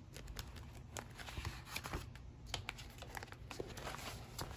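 Paper pages being turned and handled in a ring binder: a rustling with scattered light clicks and taps.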